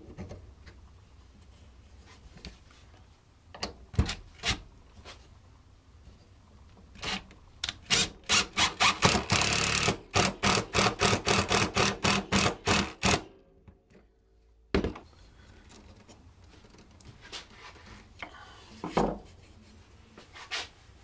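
Cordless drill driving a 3½-inch stainless steel screw down through a wooden decoy head into the body: a run of loud rapid clicks, about four a second, for about six seconds, with the motor running steadily for a moment in the middle. A few wooden knocks and handling thuds come before and after.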